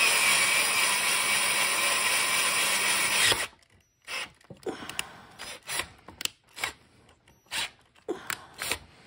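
Cordless drill running steadily as an 8.5 mm bit cuts into a Kohler engine's aluminium crankcase. It stops suddenly about three and a half seconds in, followed by a string of short, irregular clicks.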